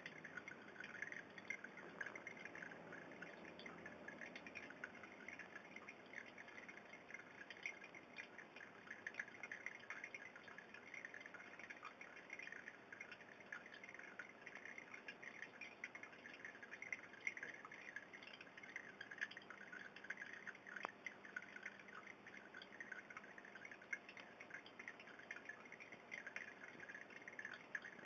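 Faint aquarium water trickling and bubbling, a steady patter of many small drips and pops.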